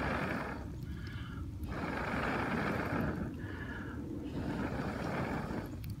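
A person blowing steadily onto glowing hardwood charcoal to fan it hotter: three long rushing blows with short pauses for breath between them, driving the coals to flare and catch the stump beneath.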